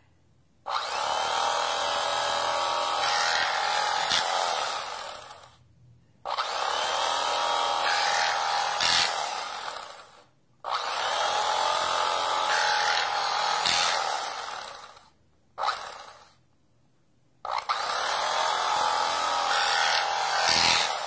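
Cuisinart CEK-30 electric carving knife running as its reciprocating serrated blades slice through a tomato: a motor whine with a buzzing saw-like edge. It is switched on in four runs of about four seconds each, with a brief blip before the last; each run starts abruptly and dies away as the motor winds down.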